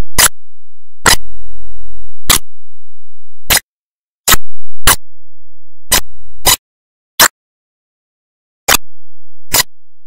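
Sharp, dry clicks at uneven intervals, about eleven of them, with nothing else heard between: digital glitches in an otherwise soundless audio track.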